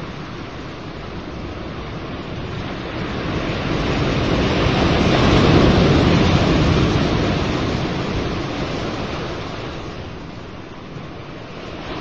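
Ocean surf: a wave rushes in, swells to its loudest about halfway through and then washes back out.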